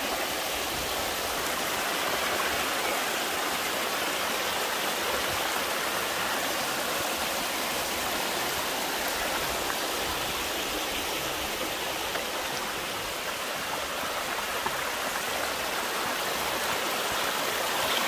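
Steady rush of running water from the Wedenbach, a small limestone tufa brook that falls in cascades.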